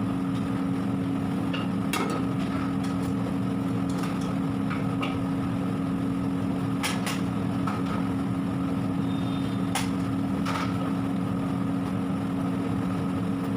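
A steady low mechanical hum, with scattered sharp clicks and knocks over it.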